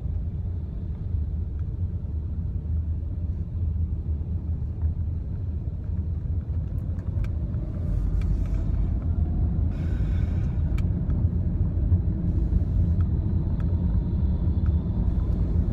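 Road and engine noise inside a car cruising on a freeway: a steady low rumble that grows a little louder about halfway through.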